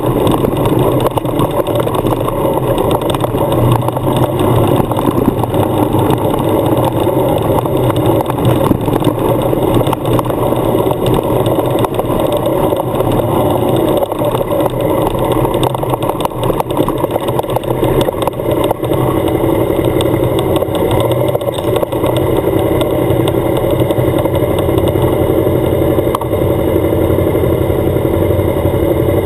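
Suzuki motorcycle's engine running steadily while riding, mixed with the rushing road and wind noise of the moving bike.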